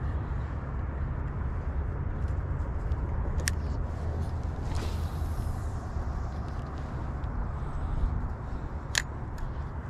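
Steady wind rumbling on the microphone, with a sharp click a few seconds in and another near the end, and a brief whoosh between them.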